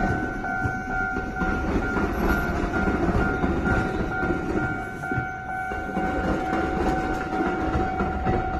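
An Iyotetsu train running over a diamond crossing where railway and tram tracks cross: a steady rumble with clattering wheel knocks throughout. A level-crossing warning signal sounds steadily over it.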